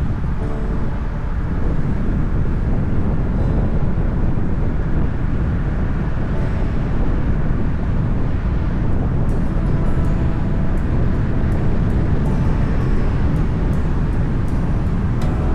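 Steady low rumble of a moving vehicle, with faint light ticks in the last several seconds.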